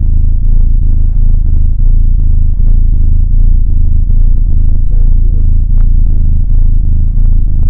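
Domestic kitten purring close to the microphone: a loud, steady, low rumble as it is stroked.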